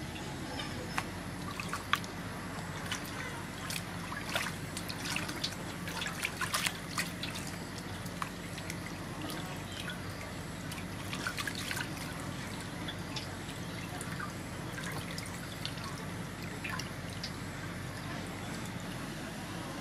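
Water splashing and dripping in an aluminium basin as a large slab of raw pork is washed and rubbed by hand, with irregular small splashes and drips, busiest in bursts a few seconds in and again near the middle, over a steady low hum.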